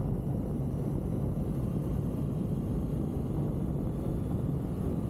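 Motorcycle running at a steady cruising speed, with a low engine hum mixed into wind and road noise. It is picked up by a camera held on a stick out in front of the moving bike.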